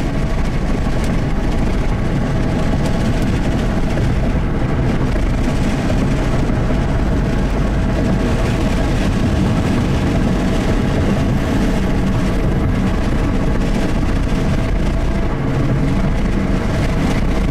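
Steady road noise inside a moving 2003 Buick Century: tyres on asphalt, engine and wind, heard from the cabin at a constant level.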